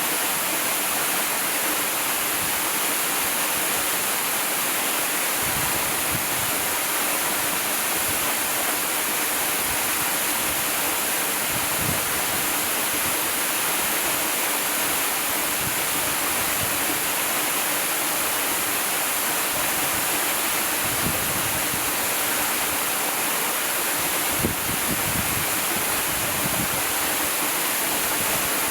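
Waterfall cascading down a steep rockface: a steady, even rush of falling and splashing water.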